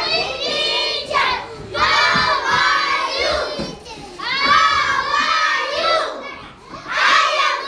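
A classroom full of young children shouting and chanting together, in loud stretches of a second or two with short breaks between.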